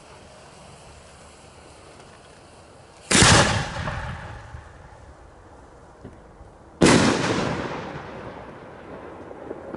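3-inch silver peony aerial shell: a sharp bang as the mortar's lift charge fires it about three seconds in, then nearly four seconds later a second bang as the shell bursts overhead, each trailing off in a long echo.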